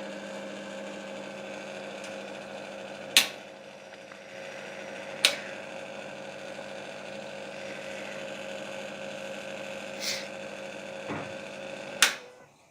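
Pillar fan heater running with a steady motor hum, broken by four sharp clicks; the hum cuts off just after the last click, near the end.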